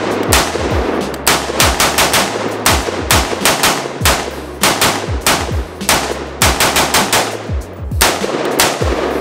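A 7.5-inch Radical Firearms AR-15 pistol firing a long string of rapid shots, often two or three in quick succession, with a short pause about a second in. The gun is cycling normally on a replacement extractor after the original broke.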